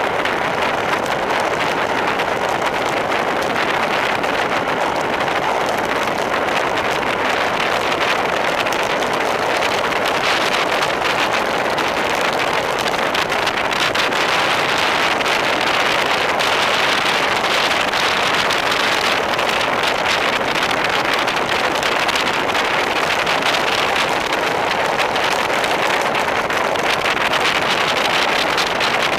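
Wind noise from the rush of air over a camera microphone on a road bike descending at speed: a steady, loud, even rush with no pauses, a little brighter from about ten seconds in.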